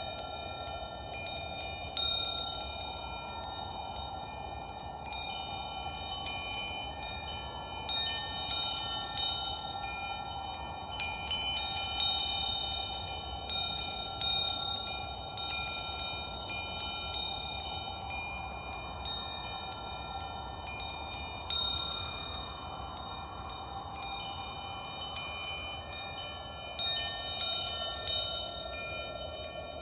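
Wind chimes ringing: several high, bell-like tones struck at irregular moments, overlapping and ringing on, over a soft steady wash of background sound.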